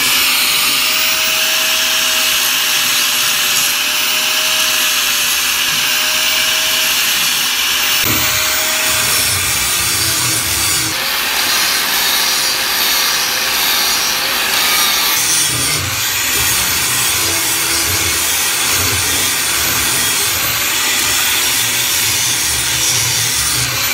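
Hitachi electric angle grinder with a flap disc, loud and steady, its motor whining at full speed while running free. From about eight seconds in the disc grinds against metal, adding a coarse rasping that goes on for most of the rest, with a short lull in the middle.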